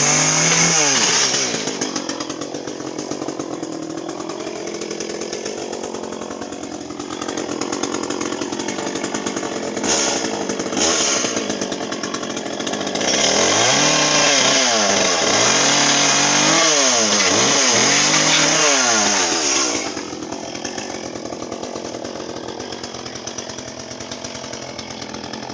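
Echo two-stroke chainsaw trimming a palm tree. It runs at full throttle at the start and again for about seven seconds from just past the middle, revving up and down several times, and drops to a lower, quieter running speed in between.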